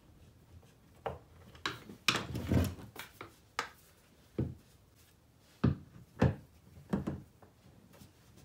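Hollow plastic cart legs and tray being handled and fitted together: a series of irregular knocks and clunks, with a louder clattering cluster about two seconds in.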